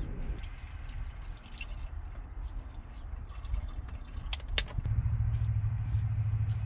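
Water poured from a bottle into a truck's cooling system to top it off. Two sharp clicks come a little past four seconds, then a steady low engine hum sets in.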